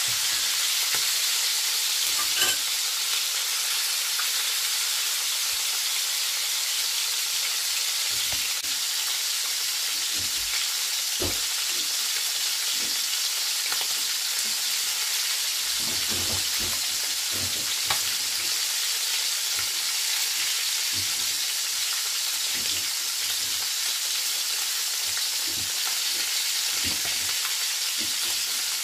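Thomson (horse mackerel) frying in a pan of hot oil: a steady sizzle with scattered small crackles and pops. A single short knock about two and a half seconds in.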